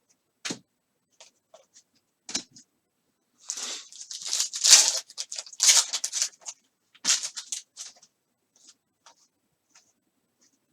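Trading-card packs and cards being handled: a few light clicks and taps, then several seconds of crinkling and tearing from the pack wrapper around the middle, then light clicks again.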